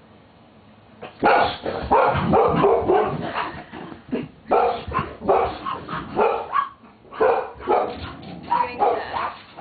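A dog barking over and over in short, quick barks, about two a second, starting about a second in.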